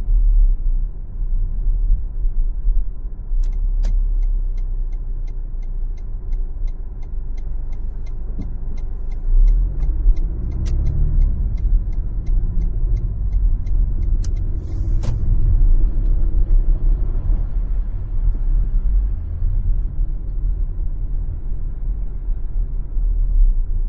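Car driving on city streets, with a steady low engine and tyre rumble. A turn-signal indicator clicks about twice a second for around ten seconds, starting a few seconds in. Midway the rumble swells and shifts in pitch.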